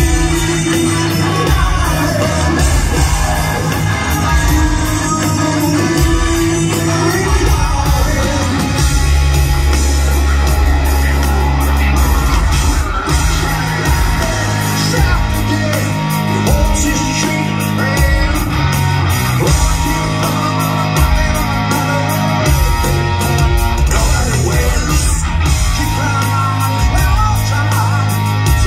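Live rock band playing loud in a large hall: electric guitars, bass and drums with a male lead singer.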